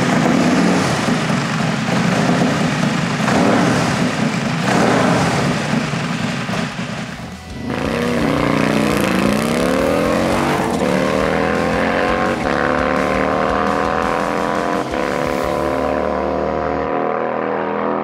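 Harley-Davidson bagger's 143-cubic-inch Milwaukee-Eight V-twin with a performance exhaust, running loud on the stand. About seven seconds in it launches hard, its pitch climbing steeply and then levelling off, with brief breaks as it shifts up through the gears.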